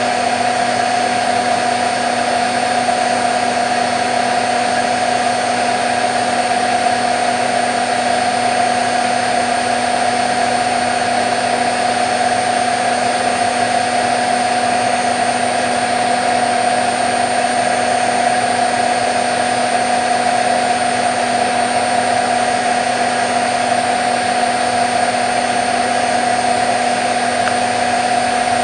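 Candy Nova CN146 washing machine in its fast final spin at 1400 rpm: a loud, steady whine from the motor and drum over a rushing hum, holding constant speed throughout.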